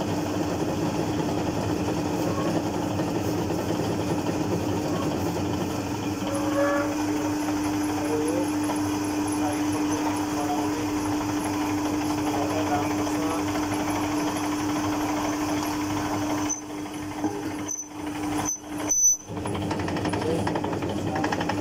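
Motor-driven noodle-making machine running steadily with a constant hum, its rollers pressing a sheet of flour dough. Near the end the sound drops out briefly a few times, with one sharp knock.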